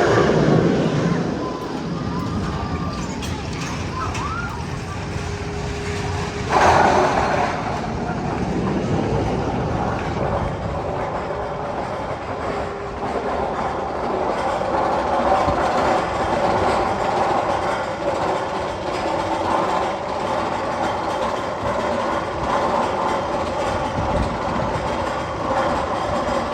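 Magnum XL 200 roller coaster train running along its steel track, a steady rumble and rattle with a sudden louder burst about six seconds in.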